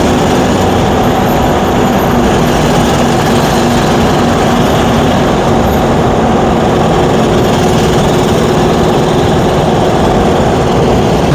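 Loud, steady engine and road noise of a 1950 Ford F1 pickup with its flathead V8 (8BA) running while driving.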